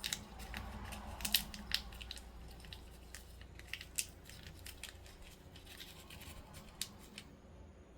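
Irregular small clicks and rustles of tiny plastic miniature toy pieces being handled and fitted together; the clicking stops near the end.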